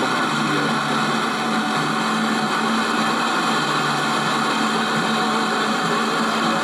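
FM static from an AOR AR5000 communications receiver's speaker tuned to 86.8 MHz: a steady rushing hiss with a faint low hum underneath and no clear station audio.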